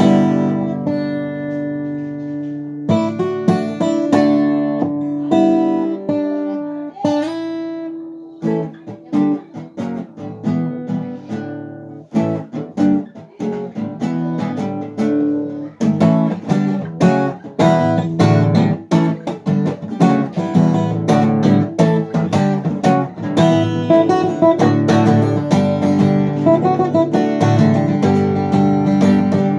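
Acoustic guitar played without singing: slow, ringing chords for the first several seconds, then a quicker flow of picked and strummed notes.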